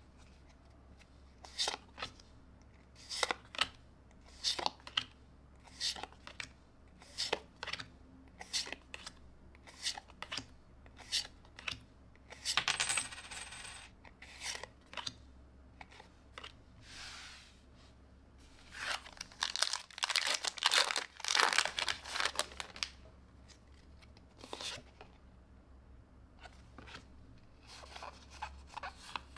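Pokémon trading cards slid one by one from the front to the back of a hand-held stack, a crisp card-on-card slide and snap about every two-thirds of a second, with a denser run of rustling a little past two-thirds through. A brief bright metallic jingle sounds a little before halfway.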